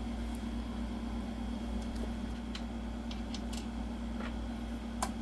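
Steady low hum, with a few faint, sharp clicks of small metal hardware as a monitor mounting plate is fitted and screwed on with an Allen wrench.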